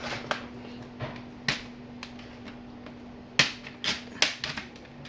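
Plastic snap clips of a Dell laptop's case clicking loose as a plastic opening pick is worked along the seam: a string of sharp clicks and snaps, the loudest about three and a half seconds in, over a steady low hum.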